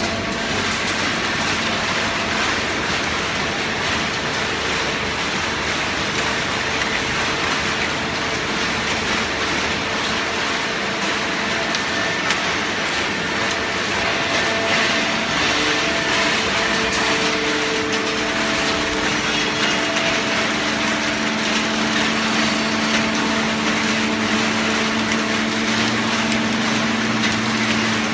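Horizontal cardboard baling press running: a steady hum and whine over dense mechanical noise, the pitch of the whine shifting lower about two-thirds of the way through.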